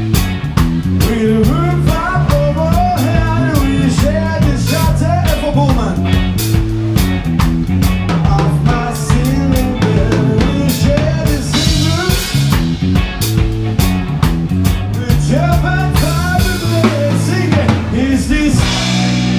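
Live rock band playing a cover medley in F#: a drum kit beating a steady groove over electric bass and electric guitar. Near the end the drumming stops and a sustained chord is held.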